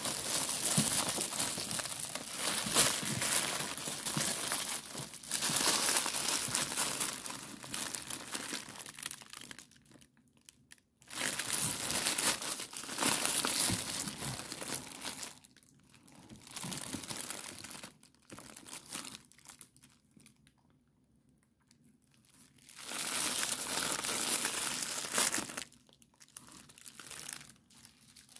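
Paper packaging, red tissue paper and paper-wrapped firecracker packs, crinkling and rustling as it is handled and unwrapped, in several spells with short quiet pauses between them.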